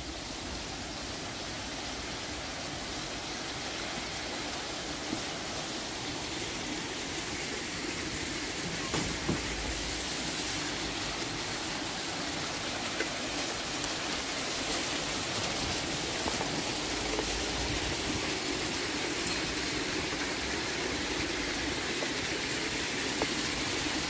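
A row of small fountain jets splashing into a long pool: a steady rushing hiss that grows slightly louder.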